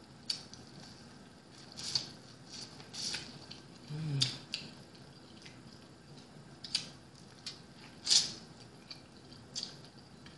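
Close-miked eating of boiled corn on the cob: irregular crisp crunches of kernels being bitten off and wet chewing smacks, with a brief murmur of voice about four seconds in.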